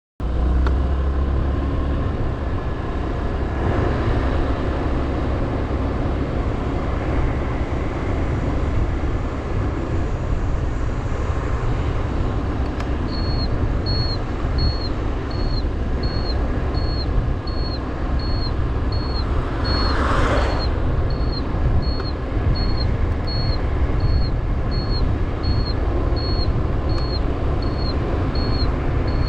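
Motorbike ride heard from the bike: steady engine and road noise with heavy wind rumble. About halfway through a high short beep starts repeating about one and a half times a second, and a brief whoosh rises and falls about two-thirds of the way in.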